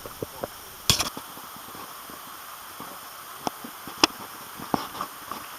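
Irregular footsteps and sharp cracks on a muddy woodland trail, the loudest cluster about a second in, over a steady faint hiss.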